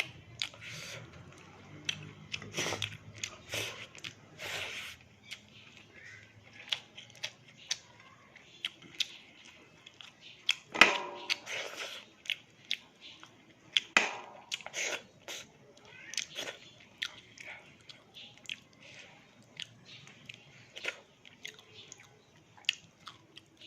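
Close-up eating sounds of fried fish and rice: chewing, with irregular sharp crunches and wet mouth clicks. The loudest crunches come about 11 and 14 seconds in.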